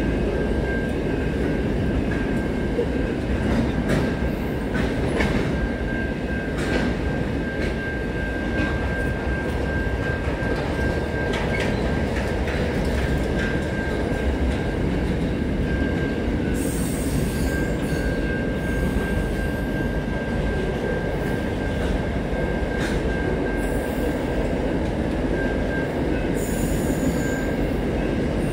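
Double-stacked container wagons of a freight train rolling past steadily, with a dense rumble and irregular clicks from the wheels. A thin, high wheel squeal comes and goes over the rumble.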